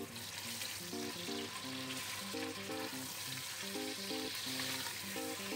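Raw mutton pieces sizzling as they fry in hot oil with onions in a stainless steel pressure cooker, stirred with a wooden spoon. The sizzle grows louder right at the start and stays steady.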